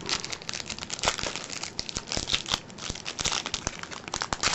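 Plastic wrapper of a trading-card pack crinkling as it is torn open and handled, a dense run of irregular crackles and sharp ticks.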